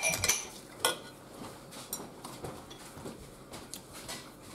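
Cutlery clinking against a plate during a meal: a few sharp clinks in the first second, one with a short ring, then only faint small clicks.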